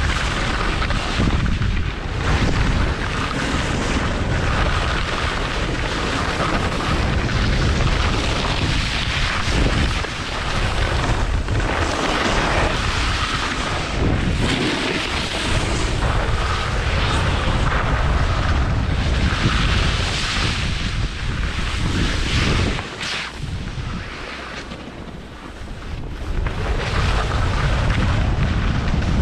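Wind buffeting an action camera's microphone during a fast ski descent, a dense rumbling rush, with ski edges scraping over packed snow. It drops away briefly about three-quarters of the way through, then comes back.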